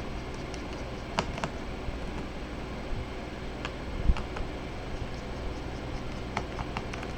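Scattered light clicks and taps of a screwdriver and small Phillips screws as a portable SSD module is unscrewed and handled, with a dull knock about four seconds in, over a steady low hum.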